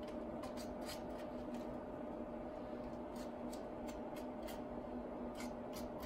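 Faint scraping and scattered light clicks of a wooden craft stick spreading epoxy resin along the edges of an MDF heart, over a steady background hum.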